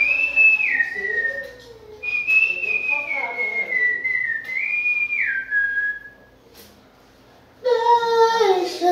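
A person whistling a tune: two phrases of held notes that step down and glide, with a short break between them. Near the end a voice starts singing.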